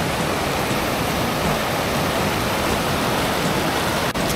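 Mountain stream rushing steadily, an even wash of running water, with a momentary break about four seconds in.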